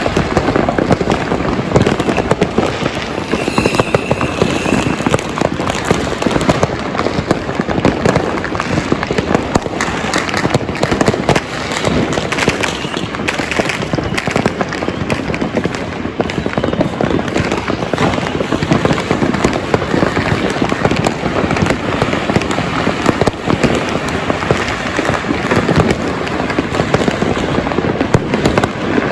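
Dense, continuous barrage of fireworks and firecrackers: many bangs and crackles overlapping with no pause. A short high whistle sounds about three and a half seconds in.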